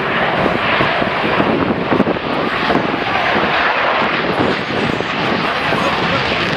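Saab 37 Viggen fighter jet's single Volvo RM8 turbofan engine running loud, a steady roar throughout.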